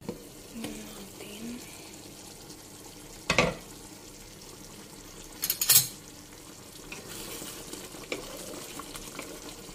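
Thick chicken curry simmering in a pan with a soft steady bubbling hiss. There is a sharp knock about three seconds in and a short clatter of cookware near six seconds. Near the end a wooden spoon stirs through the thick sauce.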